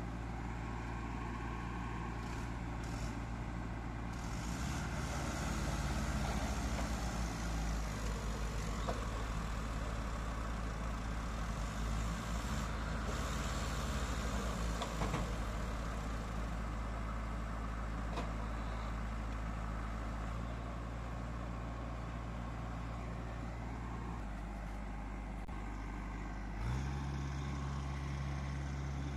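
Diesel engines of a JCB backhoe loader and a farm tractor running steadily. The engine note shifts up or down a few times as the throttle changes, most noticeably near the end.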